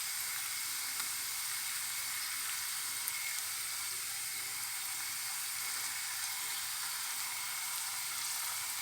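Onion, garlic, spices and tomato paste frying in olive oil in a pan: a steady, even sizzle.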